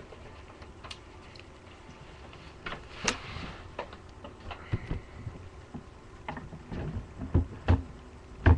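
Clicks, knocks and light scrapes of a desktop computer's power supply being handled and turned around in its metal case. The knocks come thicker and louder near the end.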